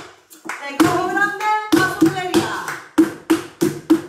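Flamenco palmas, sharp rhythmic hand-clapping in a bulerías beat, mixed with the strikes of flamenco shoes on a wooden floor. A short wordless vocal call rises about a second in.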